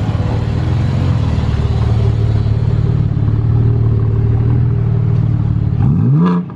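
BMW G80 M3's S58 3.0-litre twin-turbo inline-six, fitted with SSR race downpipes, idling steadily through the quad exhaust. Near the end it is revved once, the pitch sweeping up and back down.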